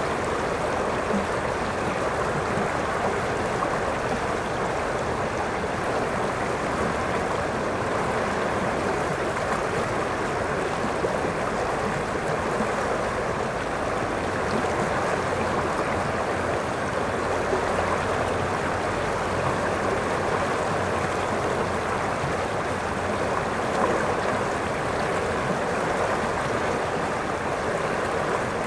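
River water rushing steadily over a shallow, rocky riffle: a constant, even rush with no breaks.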